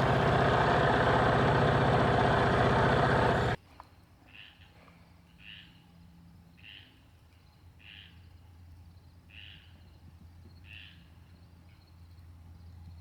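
A small outboard motor running steadily and loud, cut off abruptly about three and a half seconds in. Then, over a low steady hum, a short two-pitched animal call repeats roughly every second and a quarter.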